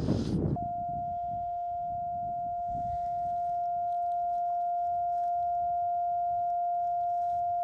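Yaesu FT-891 transceiver's CW sidetone: one steady mid-pitched beep, starting about half a second in, held while the radio is keyed down and transmitting into a dummy load.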